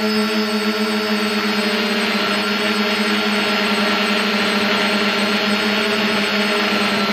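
DJI F450 quadcopter's electric motors and propellers whining steadily in flight, a mix of several steady tones over a whoosh of air. One motor has a bad bearing.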